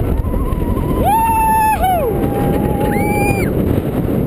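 Behemoth hypercoaster train running along the track at speed, a steady rumble and rush of air with a constant whine from the wheels. A rider's voice lets out a long held whoop about a second in and a shorter, higher cry near three seconds.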